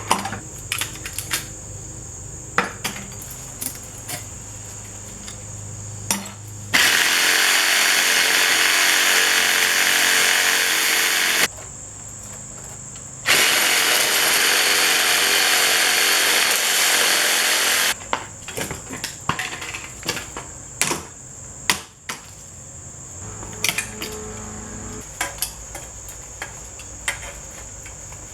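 A power tool runs in two long bursts of about five seconds each, a few seconds apart. Around them are scattered clicks and knocks of parts being handled, over a steady low hum.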